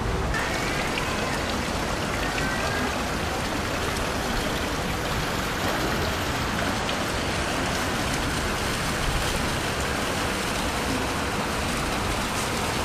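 Water splashing steadily into a public fountain's basin, a constant rushing hiss.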